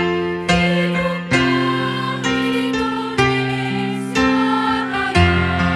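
Women's choir performing a march song with electric keyboard accompaniment, the keyboard's sustained chords changing about once a second.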